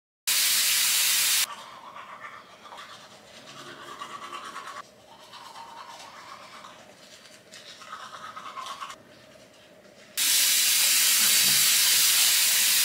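Steady hiss heard in several cut-together pieces: loud for the first second, softer and uneven through the middle with sudden cuts, then loud and steady again from about ten seconds in, like sizzling or running water.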